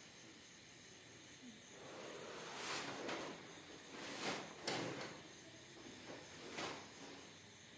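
Hands rubbing and shifting on skin and clothing during a chiropractic treatment: a handful of short hissing swishes from about two and a half seconds in, with one sharper click near the middle.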